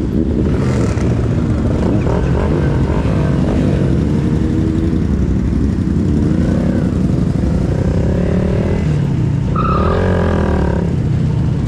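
Motorcycle engines running and revving, the pitch rising and falling again and again over a continuous rushing noise.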